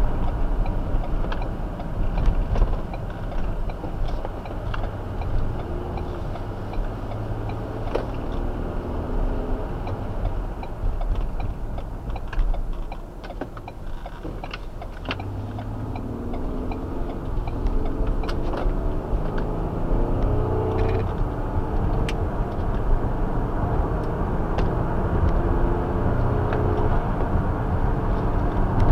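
2017 Ford Explorer Sport driving: steady engine and road rumble, with the engine note rising several times as it speeds up in the second half.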